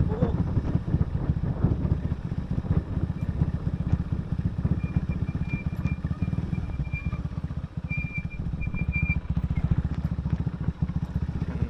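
Motorcycle engine running at low speed, its firing pulses rapid and even. A thin high tone sounds for a few seconds midway.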